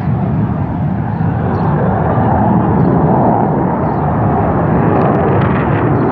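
Military jet aircraft passing overhead, a steady loud jet noise that swells slightly midway.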